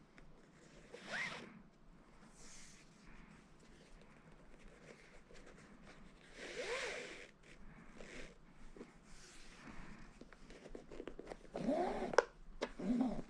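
Shoelaces being drawn through a sneaker's eyelets during re-lacing: several separate zipping swishes, with a sharp click near the end.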